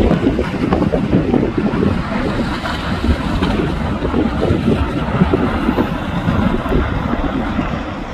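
Erupting volcanic vent rumbling steadily as its lava fountain spatters, a dense churning noise strongest low down, with wind buffeting the microphone.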